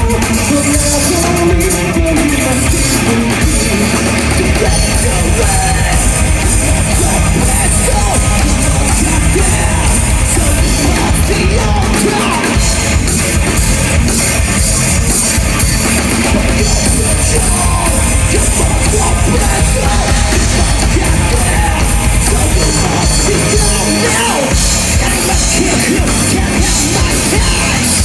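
Rock band playing live and loud: electric guitars, bass and a drum kit in a dense heavy-rock song, with a singer's voice over it in places.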